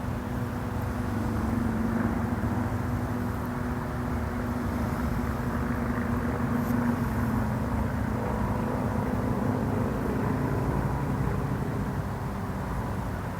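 Steady engine drone that swells louder for several seconds through the middle and then eases off.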